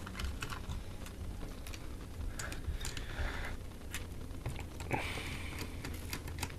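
Scattered light clicks and short scrapes of a screwdriver and fingers working on a laptop's small screws and plastic parts during disassembly.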